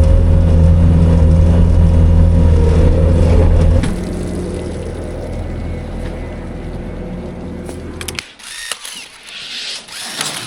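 A vehicle engine running steadily. It drops to a quieter hum about four seconds in and stops about eight seconds in, followed by a few clicks and rustling.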